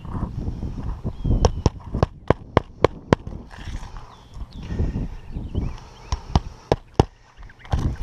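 Hammer driving roofing nails into shingles: a quick run of about seven sharp taps a second or so in, then three more near the end, with scuffing and rustling between.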